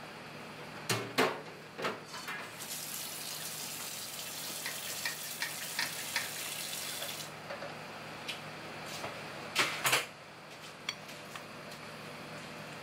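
Kitchen sounds: a few sharp clinks of metal utensils against dishes, and a stretch of running water that cuts off suddenly after about five seconds.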